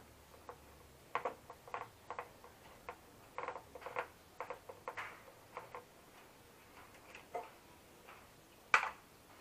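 Irregular light clicks and ticks of hand tools and plastic parts as screws are worked loose from a Honda Click 150 scooter's plastic rear body panel, with one sharper, louder click near the end.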